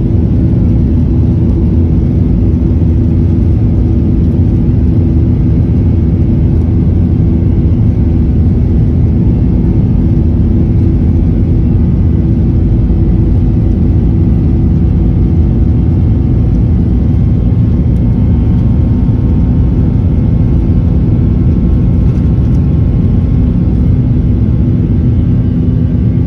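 Boeing 737-800's CFM56-7B jet engines running steadily, heard from the cabin beside the wing: a loud low rumble with a steady hum, holding one pitch without spooling up.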